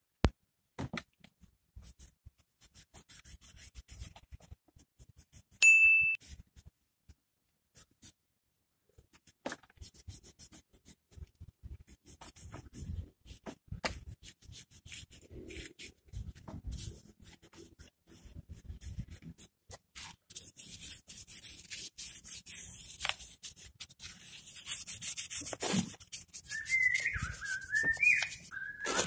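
Hand scrubbing of Honda GL Pro engine parts: scattered rubbing and scraping strokes with small knocks, the scrubbing turning denser and hissier over the last several seconds. A short ringing ding comes about six seconds in, and a wavering whistle near the end.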